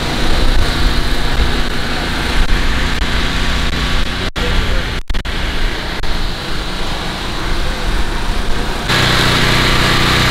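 A small engine running steadily under a rumbling hiss. The sound cuts out briefly twice around the middle, and near the end the engine hum becomes steadier and clearer.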